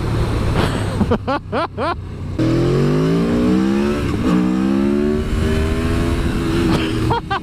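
Aprilia Tuono V4 1100's V4 engine under hard acceleration: after about two and a half seconds the revs climb steeply, drop sharply at quick upshifts and climb again. Wind noise on the microphone lies under it.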